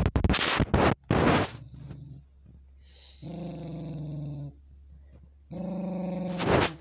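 Small dog growling low and steady in two long growls, a warning while guarding the plush toy it is lying on, with a few short, sharp, noisy huffs at the start and near the end.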